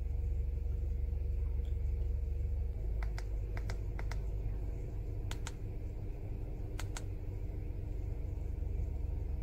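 Buttons on an ANCEL FX3000 handheld scan tool clicking, mostly in quick pairs, several times from about three seconds in, as its menus are stepped through. A steady low rumble with a faint hum runs underneath.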